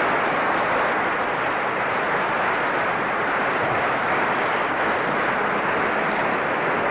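Steady, even crowd noise from a large gathering in a reverberant church, a continuous rush with no single voice standing out.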